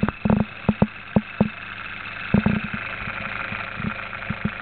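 Homemade Orbo-replica pulse motor, a 6-volt DC rotor carrying neodymium magnets driven past two toroidal coils, running steadily at about 1000 RPM with a continuous hum. The rotor is a little off balance, so it vibrates. Sharp irregular knocks come mostly in the first three seconds.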